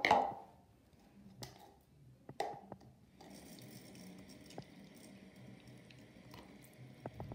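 Handling noise from plush toys held against the microphone: soft rustling and squishing with a few sharp clicks. From about three seconds in there is a faint steady hiss with a thin high whine.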